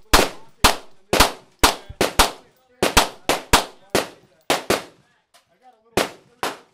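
Rapid, uneven gunfire from several firearms: about sixteen sharp shots in under seven seconds, some coming close together, with a short lull about five seconds in.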